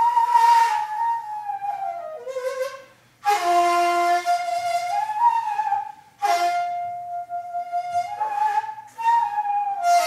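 Daegeum, the Korean bamboo transverse flute, playing a slow melody in long held notes that slide and bend in pitch. Each phrase starts with a breathy attack, and the playing breaks briefly for breath about three and six seconds in.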